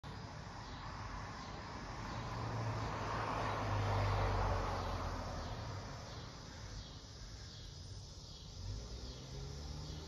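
Cicadas singing in repeated swelling buzzes over a low traffic rumble; a passing vehicle swells up and is loudest about four seconds in.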